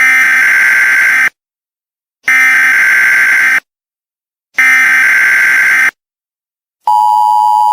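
Emergency Alert System SAME header: three harsh digital data bursts, each a little over a second long, with about a second of silence between them. Near the end the steady two-tone EAS attention signal begins.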